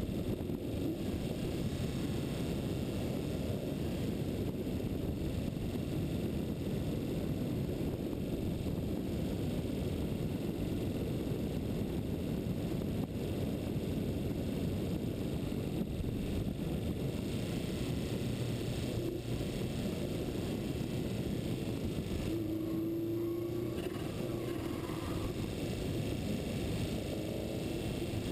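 Wind buffeting a moving camera's microphone at descending speed: a steady low rumble with no let-up, and a short faint whine about three quarters of the way in.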